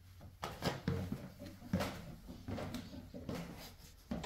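Footsteps on bare wooden stairs: a series of uneven thuds and knocks as someone goes down the steps.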